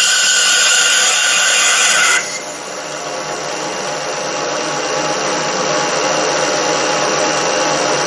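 Mini lathe with an electronic lead screw running during a thread-cutting pass, its threading tool cutting an M8 × 1.25 mm thread in brass. A loud, harsh hiss for about the first two seconds cuts off abruptly into a quieter, rougher mechanical running noise that slowly grows louder.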